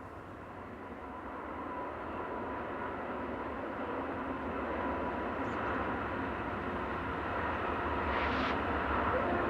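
Diesel locomotives of an approaching freight train, a steady low rumble that grows gradually louder.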